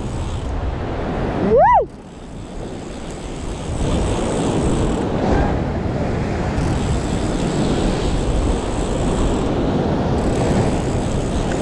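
Ocean surf and wind rushing steadily against the rocky shoreline, a little louder from about four seconds in. Under two seconds in, a short tone rises and falls in pitch, the loudest moment.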